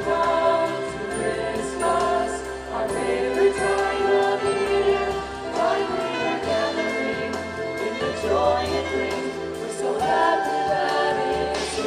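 Christmas show music: a choir singing over an instrumental backing track, steady and fairly loud.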